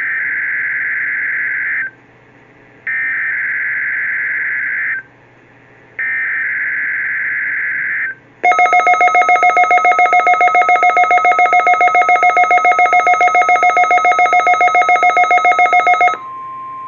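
NOAA Weather Radio Required Weekly Test tones: three shrill two-second bursts of SAME digital header data with short gaps between them, then a loud, rapidly pulsing electronic alert tone of about six or seven beeps a second. Near the end the steady 1050 Hz warning-alarm tone begins.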